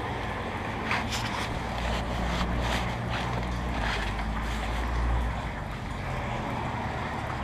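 Towel rubbing and wiping over a bicycle frame right beside the microphone: repeated rustling, swishing strokes over a steady low rumble of handling and wind noise on the mic.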